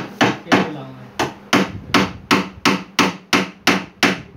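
Hammer striking a cabinet frame in a steady run of about a dozen blows, roughly three a second, each with a short ring.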